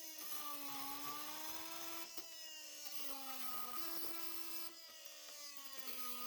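Milwaukee M18 Fuel brushless oscillating multi-tool running a carbide blade through a screw-studded wooden board. Its steady whine sags in pitch as the blade bites and jumps back up as the load eases, several times over.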